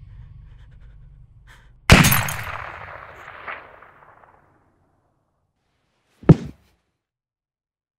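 A single gunshot about two seconds in, a sharp crack that dies away in a long echo. About four seconds later comes a short, heavy thud, the loudest sound, as the shot woman's body falls to the floor.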